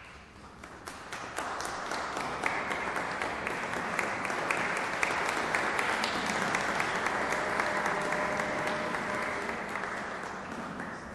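Audience applauding: the clapping builds over the first couple of seconds, holds steady, and fades out near the end.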